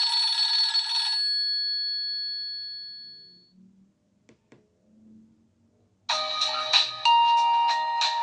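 Nokia 6111 mobile phone's loudspeaker playing its built-in tones. A bright, chord-like tone cuts off about a second in and rings away over the next two seconds, and a faint click comes in the pause. About six seconds in a new ringtone starts, a quick, rhythmic melody.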